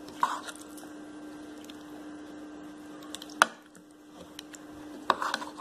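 Metal spoon stirring chicken pieces in a thick yogurt marinade in a bowl: wet squelching, with a few clicks of the spoon against the bowl, the sharpest about three and a half seconds in and a quick run of them near the end. A steady low hum runs underneath.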